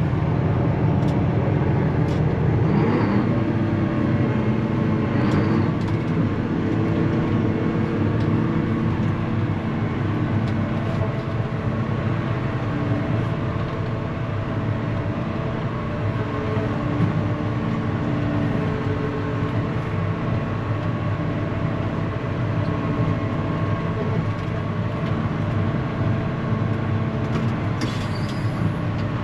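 Large farm tractor engine running steadily under load as it tows a truck stuck in a snowy ditch by a chain.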